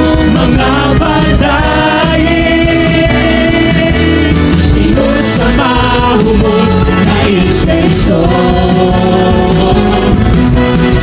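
Live worship band playing a Cebuano praise song: women's voices singing sustained, gliding melody lines into microphones over electric bass guitar and a drum kit, with a few cymbal crashes in the middle.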